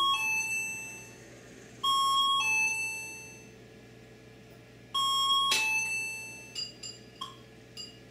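A two-note electronic "ding-dong" chime sounds three times: at the start, about two seconds in, and about five seconds in. Each time a higher note drops to a lower one and fades away. A few light clinks follow near the end.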